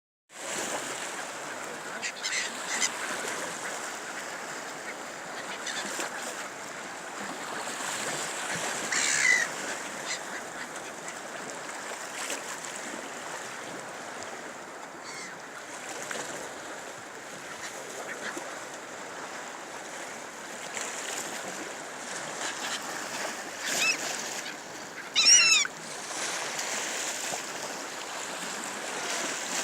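Sea waves washing steadily, with a few short, harsh bird calls over them; the loudest call comes about 25 seconds in.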